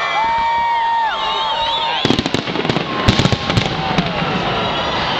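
Fireworks going off: high gliding and warbling whistles for about two seconds, then a dense run of bangs and crackles.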